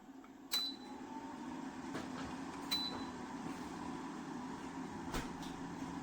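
Duux Threesixty 2 ceramic fan heater being worked from its control panel: twice a button click with a short high beep, and the fan starting up after the first beep and running with a steady hum. A further click comes near the end.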